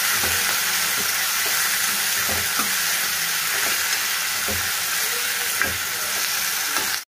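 Sliced onions and tomato pieces sizzling steadily in hot oil in a pan, stirred with a steel spoon that scrapes and knocks against the pan every second or two. The sound cuts off suddenly just before the end.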